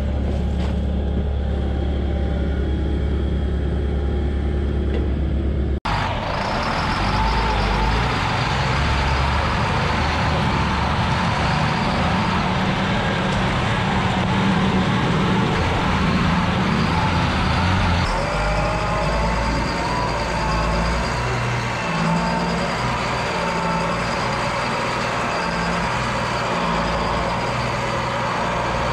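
Dump truck engine running steadily under load. About six seconds in the sound cuts abruptly to a broader, noisier engine sound that carries on to the end.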